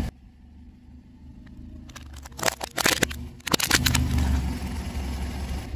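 Car tyre rolling over a row of cucumbers: a quick cluster of cracking crunches about two seconds in as they split. Then the car's engine runs low and steady.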